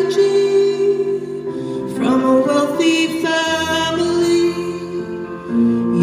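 Slow song performed live: a woman singing long, held notes over a Roland RD-800 stage piano, with new chords struck every couple of seconds.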